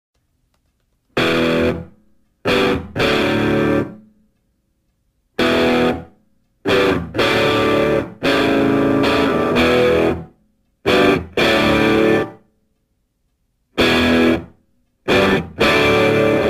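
Background music of guitar, with distortion, playing in stop-start phrases: about seven bursts from under a second to a few seconds long, each cut off abruptly by a silent gap.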